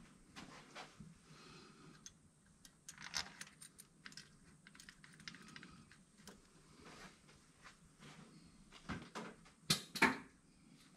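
Light, irregular clicking and clattering of small hard objects being handled, with a few louder knocks near the end.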